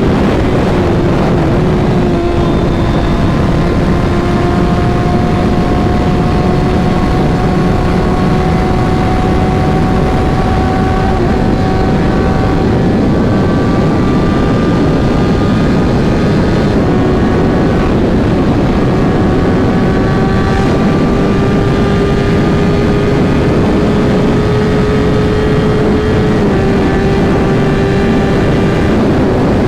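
Suzuki GSX-R1000's tuned inline-four through a Racefit exhaust, running steadily under way. Its note climbs slowly and dips back a few times, at about 11, 16 and 26 seconds in.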